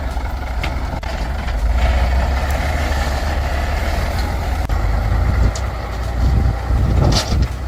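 Heavy logging truck engine running with a steady deep rumble, with a few short knocks.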